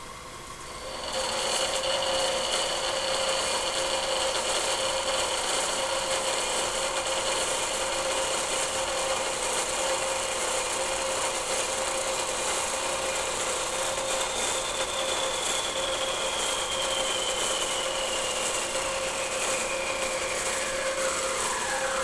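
Harbor Freight horizontal metal-cutting bandsaw blade cutting through a mild steel bar under coolant: a steady rasping cut with high ringing tones. It grows louder about a second in as the blade bites into the steel, and over the last several seconds one ringing tone slowly falls in pitch.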